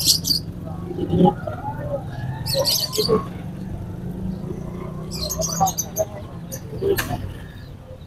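Short high-pitched chirps from caged birds, coming four or five times, over a steady low hum and a murmur of distant voices at a bird market.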